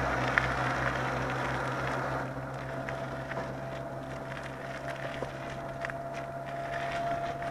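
A passing road vehicle on the bridge, its noise fading away over the first two seconds, leaving a steady low hum with a few light clicks.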